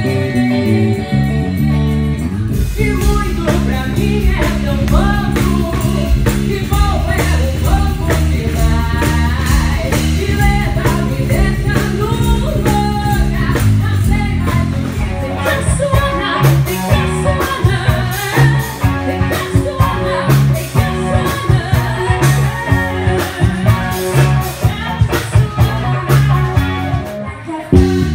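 Live band performing a song: a woman singing lead over electric guitar, bass guitar and drums. The full band comes in about two and a half seconds in.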